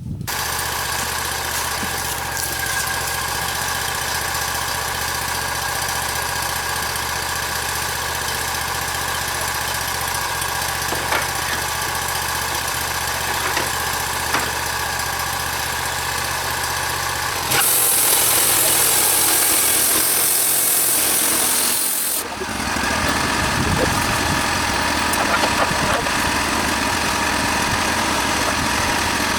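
Wood-Mizer portable sawmill's engine running at a steady speed. About two-thirds of the way through, a loud hiss sets in for around four seconds, and then the running turns rougher and louder.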